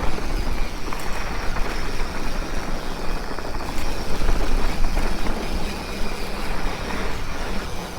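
Mountain bike rolling downhill on a rough dirt trail: a steady rumble of tyres over dirt and loose rock, with rattling from the bike.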